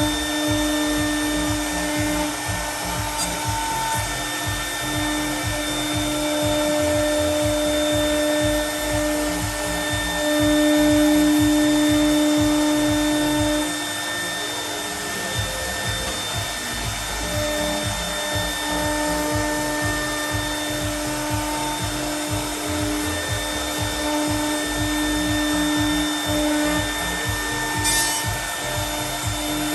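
CNC router spindle milling aluminium composite panel: a steady whine over a rough, uneven cutting and extraction noise, louder for a few seconds near the middle.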